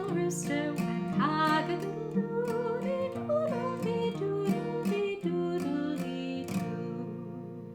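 Acoustic guitar strummed under a woman's singing voice. Near the end the singing stops and a final chord rings out and fades.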